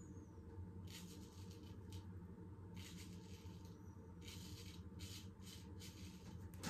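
Faint scraping of a 6/8 full-hollow Damascus steel straight razor cutting through lather and one day's stubble, in a run of short strokes, the last few coming closer together.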